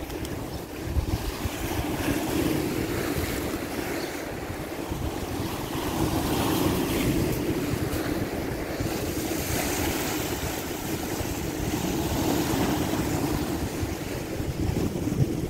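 Strong wind blowing across the microphone: a steady rushing with a gusty low rumble that swells and eases.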